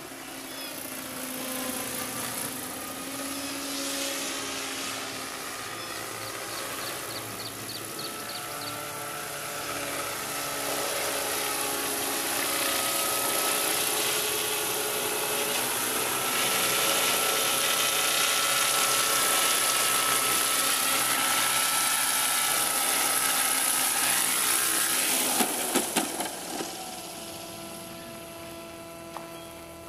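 Electric 450-size fixed-pitch RC helicopter with a direct-drive main rotor running in flight, its rotor whir growing louder as it comes close. Near the end there are a few sharp knocks as it touches down on gravel, then it runs on at a lower, steady whine with the rotor still turning.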